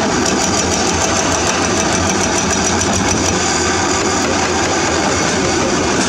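Diesel engine of a Caterpillar 320D hydraulic excavator running steadily, with rapid, even clicking for the first three seconds or so.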